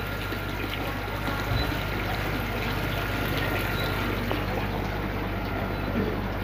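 Water running and trickling steadily in a live seafood tank, over a low steady hum.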